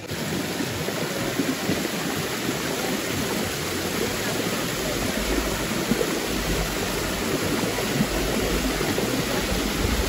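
Steady rush of a waterfall and stream pouring over rocks.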